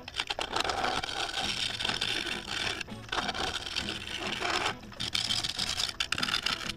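Tool rubbing and scraping against the spinning wood of a claret ash bowl blank on a wood lathe, shaping the outside of the bowl. The noise drops away briefly about three seconds in and again near five seconds.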